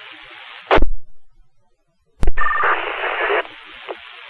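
Fire department two-way radio channel between voice messages: a burst of squelch-tail noise, a click and brief dead air, then a radio keying up with a short warbling data-burst beep and the hiss of an open carrier with no voice, which drops off with another squelch burst.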